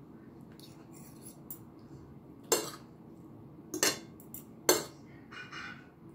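Metal cutlery striking a plate during a meal: three sharp clinks in the middle, about a second apart, with quieter scraping and eating noises between them.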